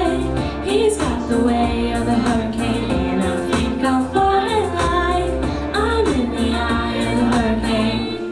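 A young female singer sings a pop song into a handheld microphone, with held, gliding notes over a backing track with a steady bass beat.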